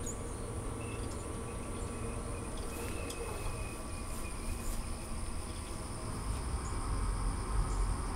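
King KP130 pellet stove running on high heat: a steady low blower hum with a thin, steady high whine over it, and a few faint ticks.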